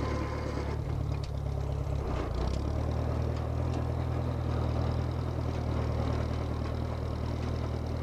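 Case 310 crawler bulldozer's engine running steadily as the dozer moves over the dirt, its note shifting briefly about one to two and a half seconds in, then steady again.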